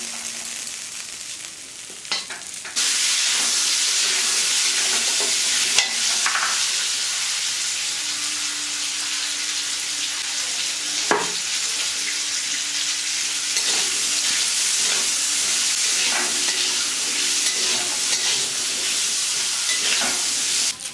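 Food sizzling as it fries in hot oil in a pan. The sizzle jumps suddenly louder about three seconds in and then stays steady.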